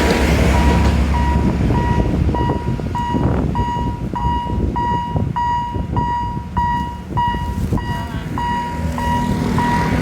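Railway level-crossing warning bell ringing a steady electronic ding, about one and a half to two strokes a second. The rumble of a train that has just passed fades in the first second or two.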